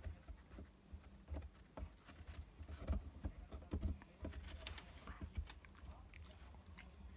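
Akita dog gnawing a wooden bird perch: irregular crunches and clicks of teeth on wood, thickest and loudest from about three to five seconds in.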